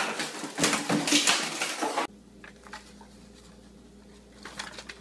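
A rapid run of loud bangs and clattering for about two seconds, cutting off suddenly. Then a quiet room with a low hum and a few faint paper rustles near the end.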